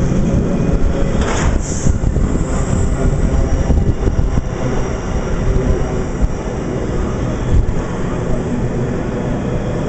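A freight train of empty flat wagons passing at speed, its wheels on the rails making a loud, steady rush. A few sharp knocks stand out, the strongest about a second and a half in.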